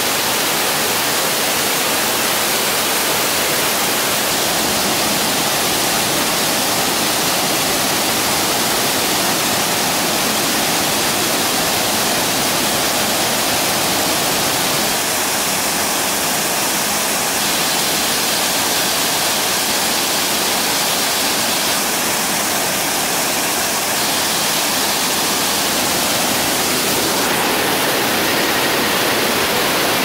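A waterfall pouring in a wide curtain of thin streams over a rock overhang into a pool, heard from just behind the falling water: a steady, loud rushing hiss.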